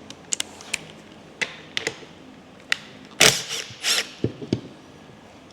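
Scattered sharp metallic clicks and knocks from handling the gear selector lever and shift mechanism of an opened Polaris Sportsman 850 transmission, with a louder clatter about three seconds in. The selector mechanism is seized.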